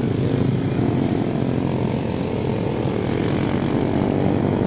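Motorcycle engines running in a steady drone.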